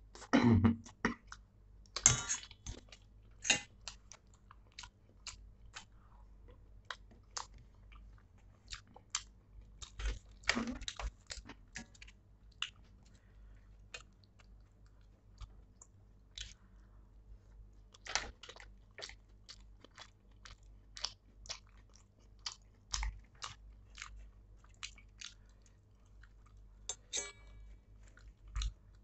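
Close-up eating sounds: a man chewing pav bhaji, with many short sharp mouth clicks. A steel spoon scrapes food out of a stainless steel bowl.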